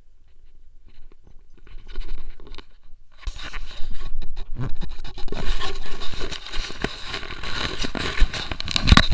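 Close-up scraping and rustling from the harness-mounted action camera rubbing against fur and grass, with many small knocks. It starts about three seconds in and stays loud.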